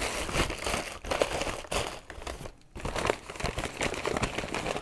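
Brown paper bag crinkling and rustling as it is handled and opened, with a short lull about two and a half seconds in.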